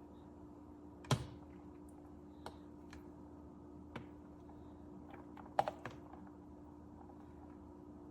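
A few scattered light clicks and knocks from handling kitchenware. The sharpest comes about a second in and a quick cluster comes a little past halfway, over a steady low hum.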